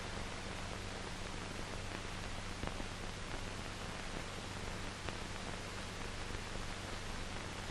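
Steady hiss and low hum of an old film soundtrack, with a few faint clicks; no speech or music.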